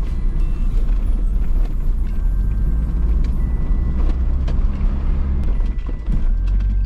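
Camping car's engine and road noise while driving, a steady low drone; the engine note shifts about six seconds in.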